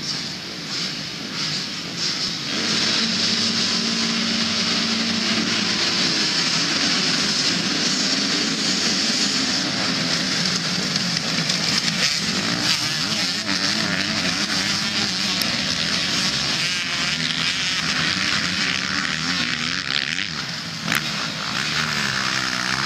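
A full gate of MX2-class motocross bikes revving hard at the start. The sound grows louder about two seconds in as the pack launches and accelerates away together, running at high revs as the bikes pass close by. Near the end a single bike's revs rise and fall.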